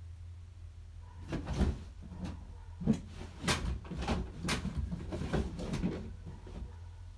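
Rummaging: a quick run of knocks and clatters of things being handled, starting about a second in and stopping near the end, over a low steady hum.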